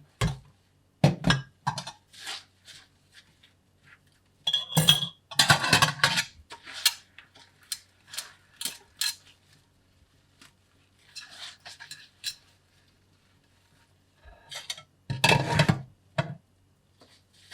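Cutlery and dishes clinking and clattering in irregular short bursts, as at a meal table.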